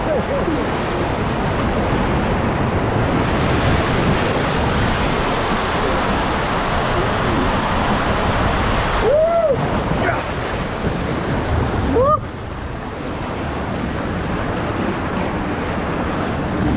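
Water rushing under an inflatable raft sliding down a tube waterslide, with wind buffeting the raft-mounted microphone. Short shouts from the riders come about nine and twelve seconds in, and the rushing drops suddenly just after the second.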